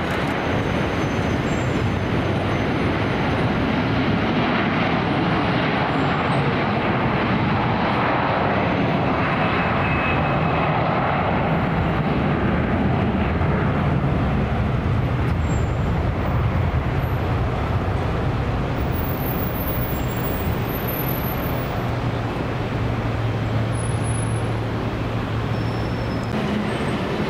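Airbus A330 jet engines on its take-off run: a steady, loud rushing roar, with a low hum that grows stronger in the second half.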